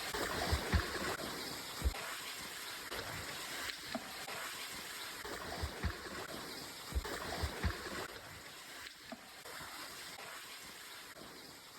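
Running stream water, with irregular low thumps from footsteps or movement as hikers cross.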